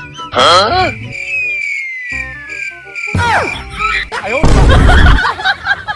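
Cartoon-style sound effects added in editing. A quick warbling chirp comes first, then a long falling whistle over a steady high beep, a swooping drop about three seconds in, and a loud low burst about four and a half seconds in.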